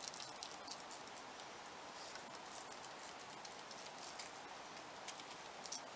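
Faint, irregular light taps and ticks of a small pastry brush dabbing melted butter onto pastry twists on a parchment-lined baking sheet, over a low hiss.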